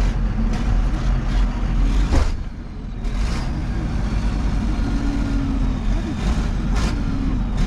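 Vehicle engine and road noise, a steady low rumble, with several sharp knocks or rattles along the way.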